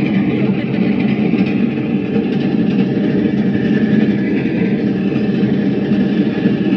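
Steady engine rumble and rattle of a small tour train, heard from on board as it runs.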